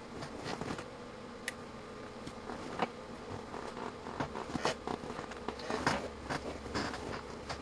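A steady electrical buzz under irregular small clicks and crackles.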